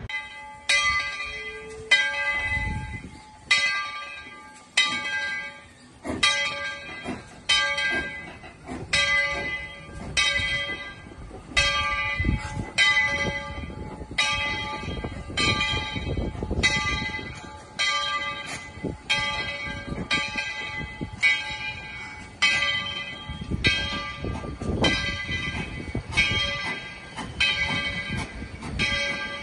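Steam locomotive's bell ringing steadily, a little more than one stroke a second, each stroke dying away, as the train approaches. A low rumble from the moving train runs underneath.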